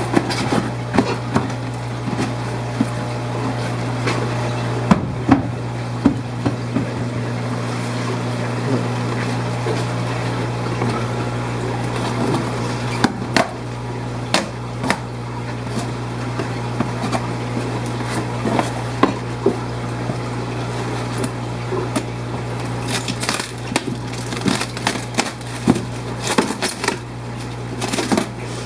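Steady low hum and bubbling of aquarium pumps and filtration, with scattered clicks, knocks and rustles of things being handled, busiest in the last few seconds.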